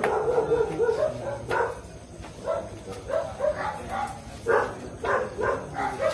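A dog barking and yipping in short, repeated calls.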